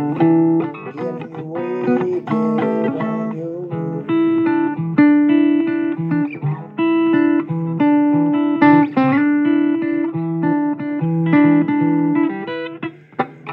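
Blues guitar playing an instrumental break with no singing: picked single notes and a few sliding, bent notes over a repeated bass note. It stops a little before the end.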